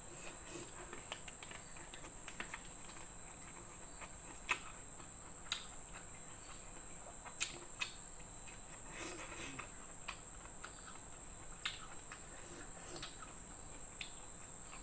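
Steady high chirring of crickets, with scattered sharp clicks and smacks of a person chewing food.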